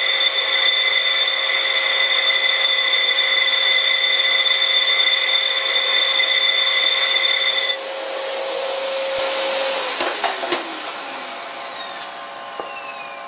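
Vintage Karger lathe running under a variable-frequency drive while a brazed carbide tool bit cuts a cast iron faceplate, with a steady multi-tone whine. About eight seconds in the sound drops and changes, and near the end a falling whine sweeps down as the drive slows.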